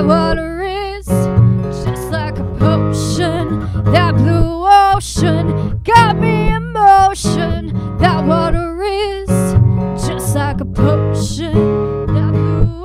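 A woman singing long held notes with vibrato over a strummed steel-string acoustic guitar.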